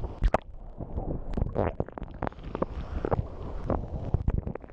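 Low rumbling wind noise buffeting the microphone, with irregular knocks and thumps scattered throughout.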